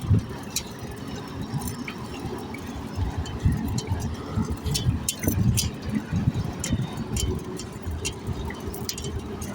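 Gusty low rumble of wind buffeting the microphone during a bicycle ride along a road, with scattered sharp clicks throughout.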